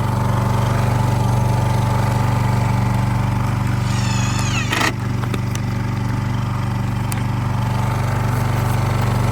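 Honda 2200 generator, converted to run on propane, running steadily at a constant engine speed. A brief high squeak sweeps downward about halfway through.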